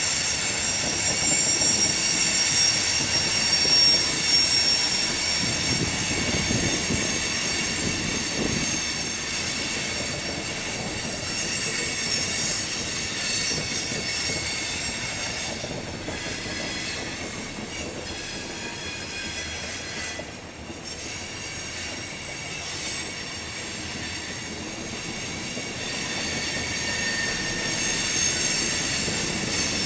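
Freight train of loaded tank cars rolling past, the wheels squealing in several high steady tones over the rumble and clatter of the cars; the sound eases somewhat in the middle and grows again near the end.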